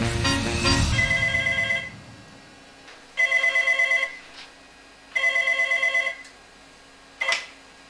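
Soundtrack music dying away in the first second, then a desk telephone ringing three times, each ring a warbling trill just under a second long, about two seconds apart. A short knock follows near the end.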